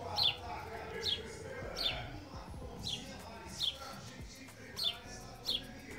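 A small bird calling over and over, a short falling chirp roughly once a second, with faint music in the background.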